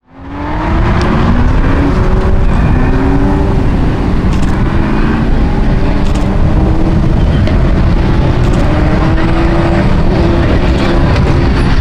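A pack of sports racing cars' engines running together, many engines at once with pitches rising and falling as they rev. The sound fades in at the very start.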